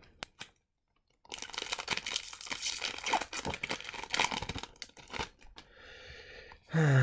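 Foil Magic: The Gathering booster pack being torn open by hand, a dense run of crinkling and crackling lasting about four seconds. It turns to softer rustling as the cards come out, and a short vocal sound comes in at the very end.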